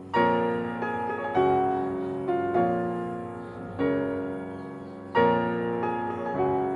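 Background music: a gentle piano piece, with notes and chords struck about once a second and left to ring and fade.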